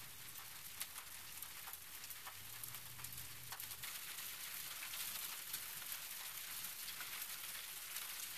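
Light rain falling, a faint steady hiss with scattered ticks of individual drops.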